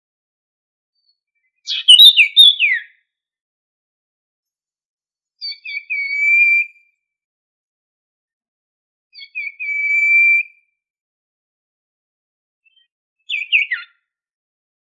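Sirtu songbird singing short, energetic phrases four times with pauses of about three seconds. The first and last are quick runs of falling notes; the middle two start with a few short notes and end in a long, level whistle.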